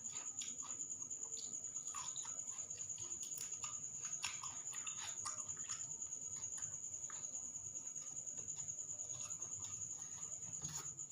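Close-up chewing and mouth noises of someone eating soy-braised tempeh with peanut sambal: many small wet clicks and smacks in quick succession, over a steady high-pitched whine.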